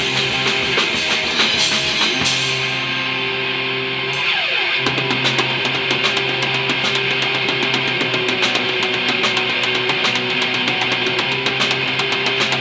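Heavy metal music: distorted electric guitar playing over a drum kit. The drums drop out briefly about two seconds in, leaving the guitar alone, then come back with fast beats.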